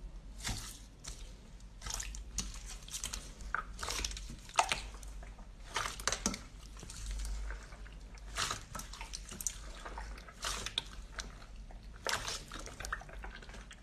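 Sticky, wet crackles, clicks and squishes as a thick, gooey substance such as honey or slime is pressed, stirred and pulled apart, coming irregularly.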